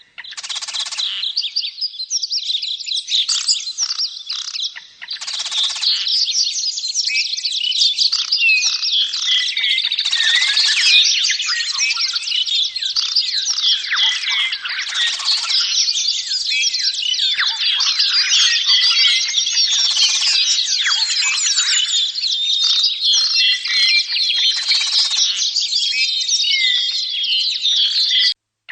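Dense, continuous chattering and chirping of a flock of caged lovebirds and budgerigars, with harsher calls standing out every few seconds. It cuts off briefly just before the end.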